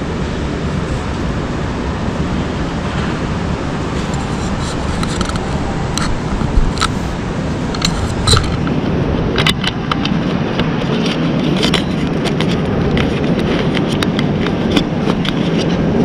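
Shopping-centre ambience: steady low background noise with irregular clicks and scrapes that start about four seconds in and go on to the end.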